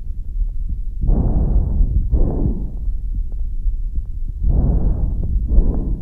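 Animal breath sounds heard through a stethoscope: two breaths about three and a half seconds apart, each a soft rushing inhale followed closely by an exhale, over a steady low rumble.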